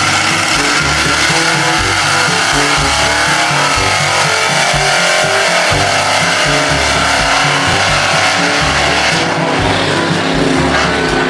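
Monster-truck school bus's engine running hard as it drives through mud, with background music alongside.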